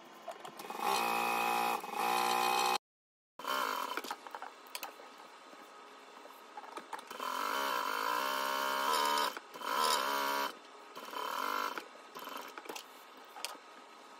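Sewing machine running in several short bursts of stitching, its motor speeding up and slowing between stops.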